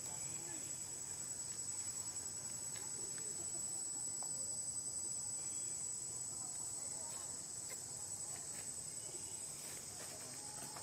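A steady, high-pitched insect chorus with a few faint ticks.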